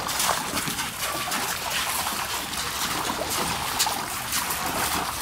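Water splashing and sloshing in shallow plastic kiddie pools as several dogs wade and move about in them: many small splashes in quick succession, at a steady level.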